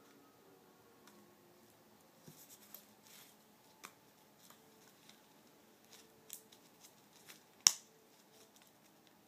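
Gloved hands handling medical dressing supplies on a table, with rustling packets and light clicks and taps. One sharp, louder click comes about three-quarters of the way through.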